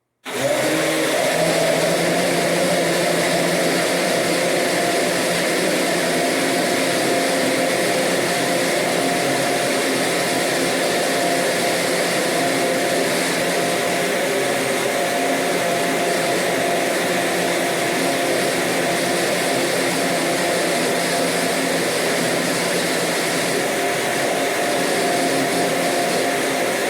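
Electric blender motor running steadily at one speed, mixing a thick mayonnaise emulsion of milk and oil.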